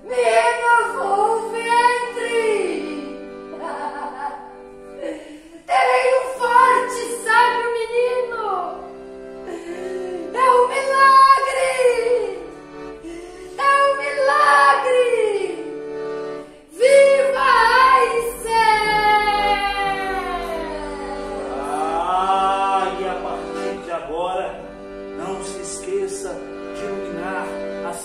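Wordless singing over a sustained instrumental drone: a voice glides and holds long notes in a string of phrases, with one long falling slide in the middle.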